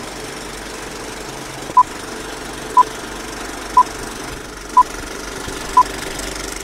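Five short, identical beeps exactly a second apart, like an intro countdown, over a steady mechanical rattling whir.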